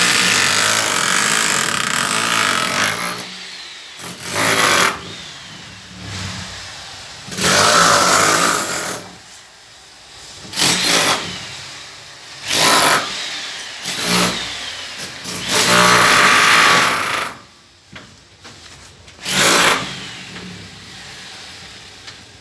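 A power tool run in repeated bursts of one to three seconds, about eight times, with the motor winding down after several of them.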